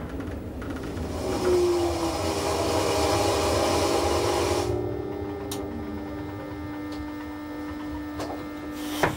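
Rhaetian Railway electric train running on the Bernina line: a hiss of running noise that fades about halfway, with a steady whining tone underneath.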